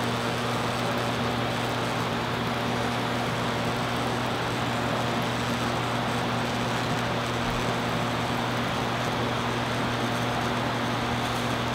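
Steady hiss with a constant low electrical hum under it, unchanging throughout.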